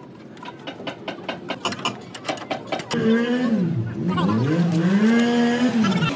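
Ratchet wrench clicking in quick strokes as the nut on a suspension bush bolt is tightened. About three seconds in, a louder pitched sound takes over, dipping low and climbing back up, then holding steady to the end.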